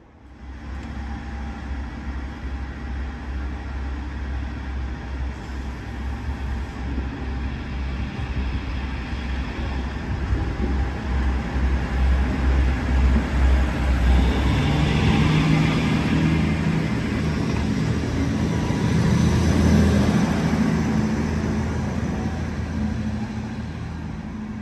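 Diesel trains at a station platform. A low, steady engine rumble runs for the first half. About halfway through, a diesel engine works harder with a rising, pitched tone. It is loudest about three-quarters of the way in, then eases off.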